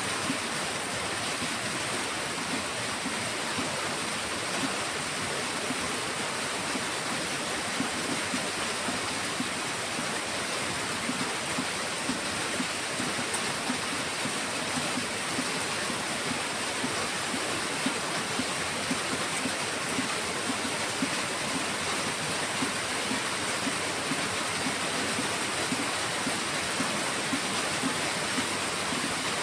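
Heavy rain falling steadily, a dense, even hiss of water with small momentary spikes.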